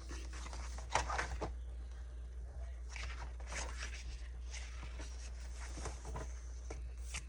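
Paper pages of a budget planner being turned and handled: soft rustles and scrapes every second or so.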